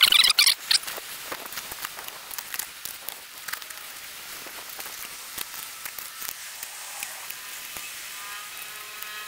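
A knife cutting along a black bream's backbone on a plastic cutting board, crackling and scratching through the skin and rib bones. There are a few louder rasps in the first second, then steady fine crackling. A faint hum creeps in near the end.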